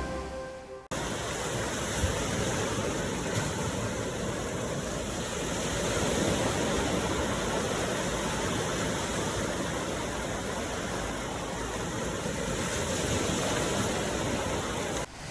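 Ocean waves: a steady, even wash of surf that swells and eases gently. It starts abruptly about a second in, as music fades out, and cuts off just before the end.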